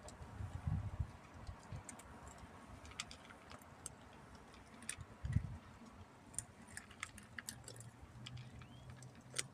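Cat eating, with irregular small crunching clicks and a few soft low thumps. A steady low hum comes in near the end.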